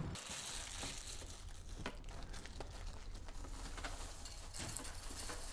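Frosted Flakes cereal poured from its box into a bowl: many small dry clicks as the flakes patter into the bowl, with crinkling from the packaging.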